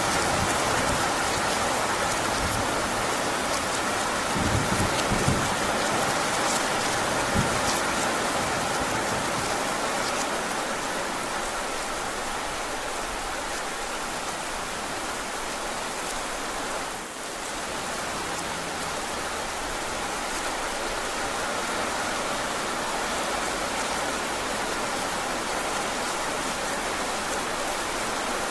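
Heavy rain falling steadily, with a few low knocks in the first eight seconds or so.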